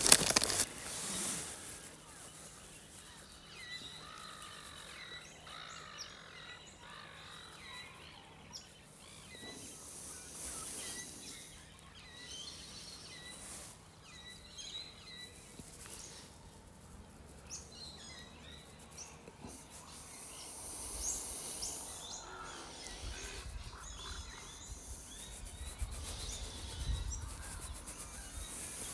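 Birds chirping faintly, short calls repeating over quiet outdoor ambience, with some low rumbles in the last third.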